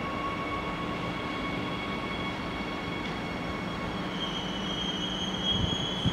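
Bombardier-built Adelaide Metro 4000-series electric train pulling slowly into the platform, giving a steady whine over its running noise. A higher squealing tone joins about four seconds in as it slows.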